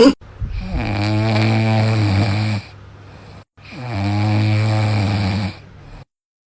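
A dog snoring: two long, buzzing snores of about two seconds each, about a second apart, each trailing off into a softer breath.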